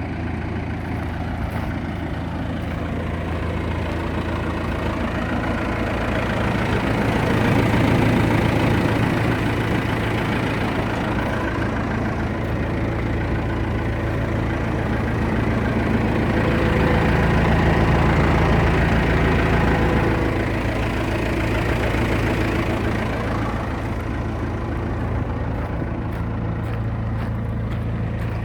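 1998 JCB backhoe's diesel engine running steadily at idle. It swells louder and fuller twice, about eight and about eighteen seconds in, then settles back.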